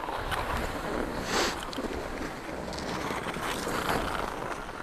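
Wind rushing on an action camera's microphone, mixed with skis scraping on packed snow, with a louder scrape about a second and a half in.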